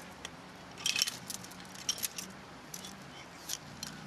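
Metal chain of a fence-wire chain strainer clinking and rattling in short, scattered clinks as the strainer is unhooked from the wire, with a cluster of clinks about a second in.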